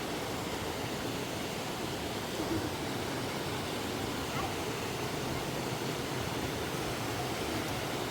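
Fast river water rushing steadily over rocky cascades, a continuous even wash of noise.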